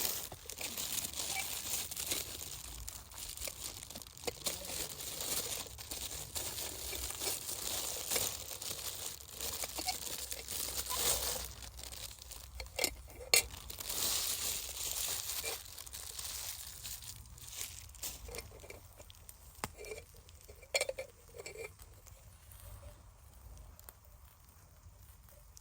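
Continuous rustling and crinkling handling noise with many small clicks, busy for most of the stretch and then thinning to scattered clicks near the end. Two sharp knocks stand out, one a little past the middle and one later.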